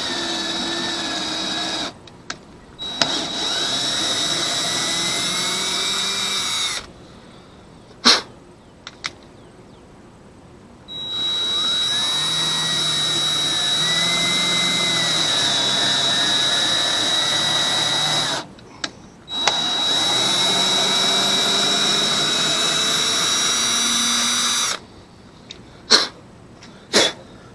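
Electric drill running in four runs of a few seconds each, its speed rising and falling, with a few sharp clicks in the pauses between runs.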